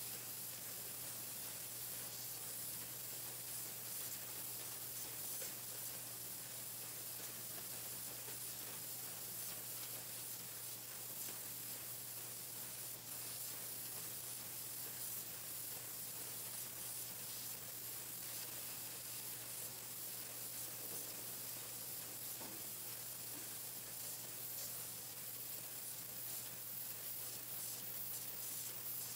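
Pencil painting machine running: a steady hiss with a constant low hum underneath.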